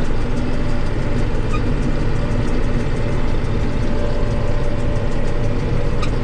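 John Deere 8820 combine running steadily while harvesting wheat: the diesel engine and threshing machinery make a constant drone with faint steady whines above it, heard from inside the cab.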